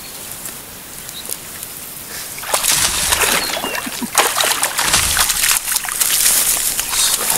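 Water splashing and sloshing, starting suddenly about two and a half seconds in and going on in quick irregular splashes: a hooked crappie thrashing at the surface as it is reeled in to the bank.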